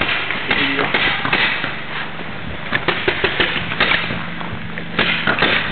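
Paintball markers firing, rapid pops coming in several bursts.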